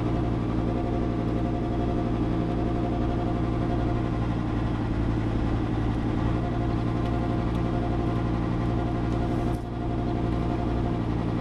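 V10 Ram pickup engine running on wood gas, its exhaust droning with a steady resonant vibration that shows up only right at about 1300 rpm and makes it sound strange. The drone dips briefly about ten seconds in, then returns.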